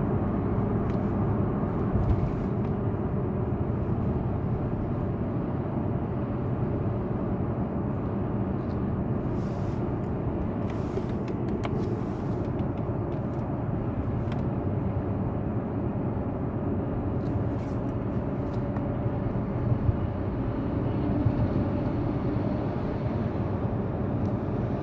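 A steady rumble and hiss, as of a car running, heard from inside, with a faint hum and a few small clicks.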